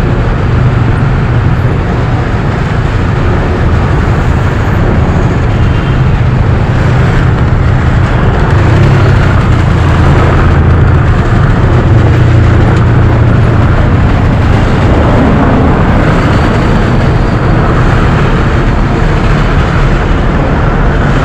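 Motorcycle riding in city traffic: a steady, loud rush of engine, wind and road noise on an action camera's microphone.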